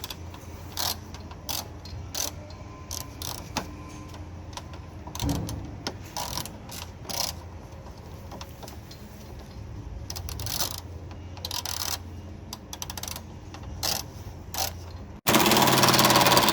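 Ratchet wrench clicking in short irregular bouts as it turns a Torx bit on a long extension, backing out the door handle's retaining screw. About a second before the end a sudden loud, steady mechanical noise starts.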